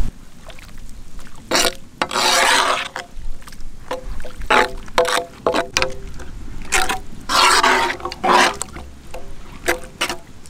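A ladle stirring freshly added water into spice masala in a large iron wok: a series of irregular sloshing, scraping strokes, some leaving a faint ring from the pan.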